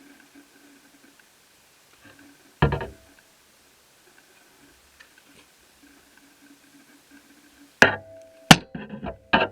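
Knocks and clicks of laptop parts or tools being handled on a work surface: one solid knock about two and a half seconds in, then a quick cluster of sharp clicks and knocks near the end, a few with a short ringing tail.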